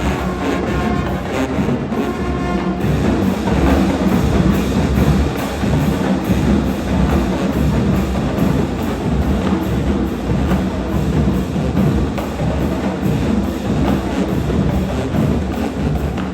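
High school marching band playing, with the drumline and percussion beating out a steady driving rhythm over the band.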